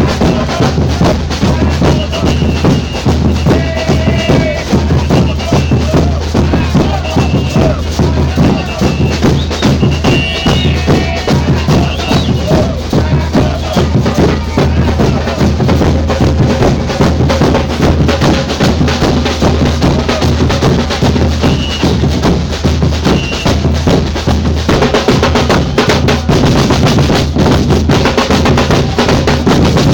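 Samba percussion group playing a fast, dense drum rhythm over a steady deep bass drum.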